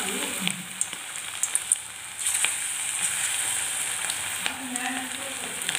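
Battered chicken pakoras deep-frying in hot oil in a kadai: a steady sizzle with scattered small pops and crackles.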